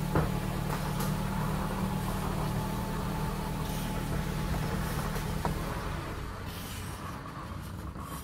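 A motor running with a steady low hum, with a single click about five and a half seconds in; the sound drops off near the end.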